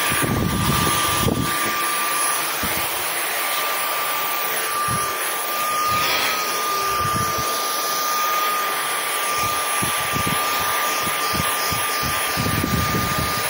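Stick vacuum cleaner running steadily with a high whine over the rush of air as its nozzle is worked along a skirting board and over a sofa, with brief low knocks here and there as it bumps and is handled.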